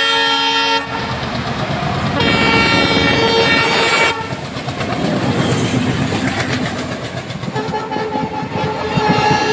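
ALCo WDM3D diesel locomotive sounding its horn: one blast cuts off about a second in and another sounds from about two to four seconds in. Then the engine's chugging and the clickety-clack of wheels over rail joints take over as the train passes, with a fainter horn-like tone returning near the end.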